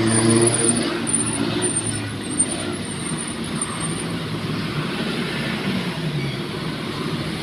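Traffic and road noise heard from inside a moving car: a steady rumble, with a deeper engine drone standing out in the first second or so before fading into the general noise.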